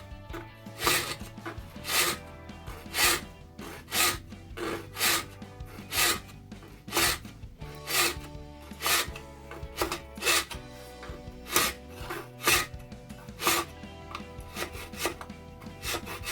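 Round file rasping a cable slot into a cordless vacuum's wall charging holder, in forward-only strokes about once a second.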